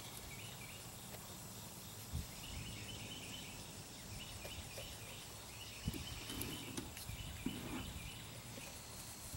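Faint outdoor background with short, high chirps repeating in quick groups through the middle few seconds, and a few light knocks.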